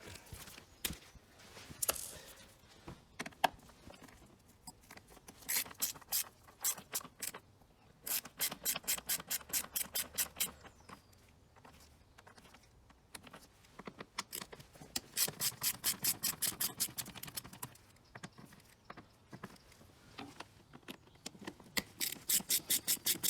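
Ratchet wrench clicking as it undoes T30 Torx screws. The rapid, even clicks come in several separate runs with short pauses between them.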